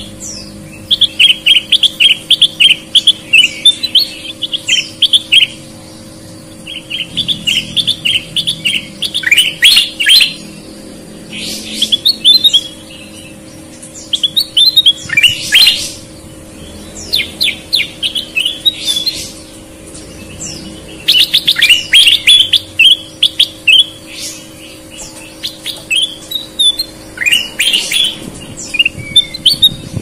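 Kutilang emas (ruby-throated bulbuls) in full, persistent song: bouts of quick, bright chirping notes lasting a few seconds each, repeated with short pauses between them.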